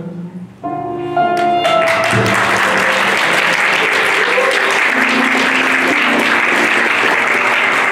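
The backing music closes on a few held notes, and about two seconds in an audience breaks into applause that carries on steadily to the end, with the music faint beneath it.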